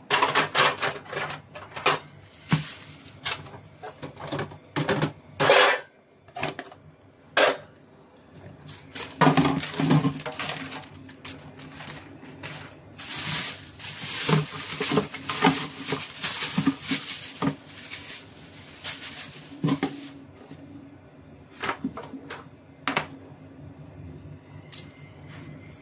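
Clear plastic bag crinkling and rustling as raw shrimp are handled in it, with clicks, knocks and clatter from a cutting board and plastic tray in a stainless kitchen sink. The rustling is thickest in the middle, and a faint steady low hum runs underneath.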